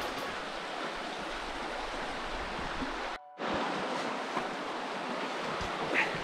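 The River Wye rushing steadily over its rocky bed, with a brief break about three seconds in.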